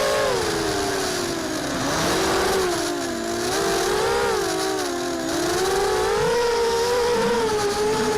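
Mini racing quadcopter's brushless motors (Cobra 2204, 2300 KV) spinning 5-inch props: a buzzing whine that falls and rises in pitch with throttle changes, dipping lowest about 2, 3 and 5 seconds in.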